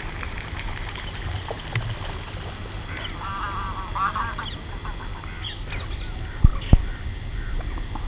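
Waterfowl calling: short runs of honking calls about three and four seconds in, with faint high bird chirps a little later. Two sharp knocks just after six seconds are the loudest sounds, over a steady low rumble.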